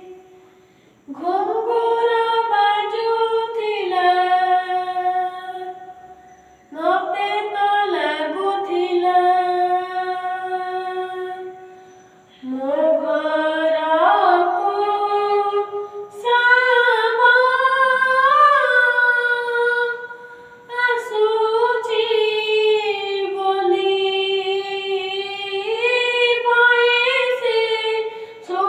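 A young boy singing a devotional bhajan unaccompanied, a single voice in long melodic phrases that slide between notes, with brief breaks for breath between phrases.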